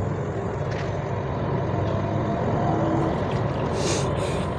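Steady engine and tyre noise heard from inside the cabin of a moving Toyota Corolla GLi, with a brief hiss about four seconds in.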